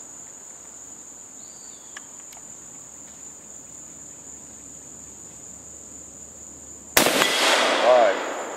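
Steady high buzz of insects, then about seven seconds in a single shot from a Swiss K31 straight-pull rifle in 7.5x55mm, its report echoing away over about a second and a half.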